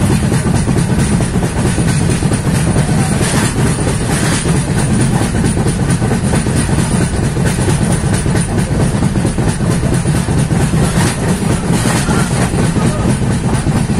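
A train running across a bridge: a loud, steady rumble of wheels on the rails, with a few clacks of the wheels over rail joints.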